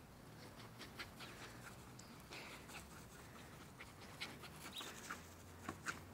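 Jack Russell terrier playing with a large tennis ball on a dry lawn: faint scattered ticks and rustles of paws and ball on the grass, with the dog panting, and a few sharper ticks near the end as the ball bounces close by.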